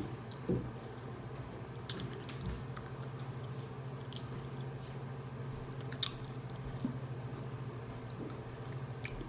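A person eating barbecue chicken off the bone: quiet biting and chewing with a few faint clicks, over a steady low hum.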